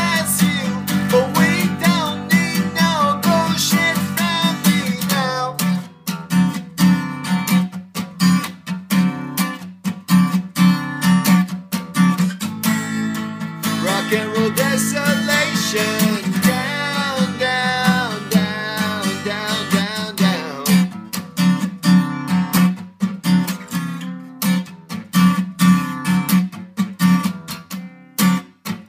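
A man singing while strumming an acoustic guitar. The voice comes in two passages, at the start and again in the middle, with the strummed guitar carrying on alone between them and toward the end.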